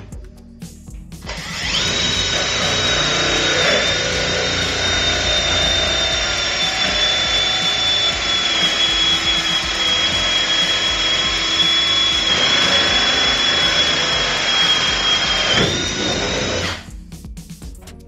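Cordless drill boring a 1-inch latch hole through the wooden edge of a door with a boring bit in a drilling jig: a steady high motor whine with a cutting rasp, the pitch sagging slightly a few times, starting about a second in and cutting off near the end.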